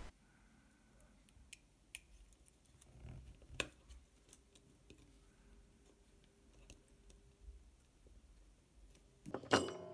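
Faint clicks and taps of hands handling a small printed circuit board and pressing a potentiometer into it, with one sharper click a few seconds in. Near the end a louder metallic clatter with a brief ring.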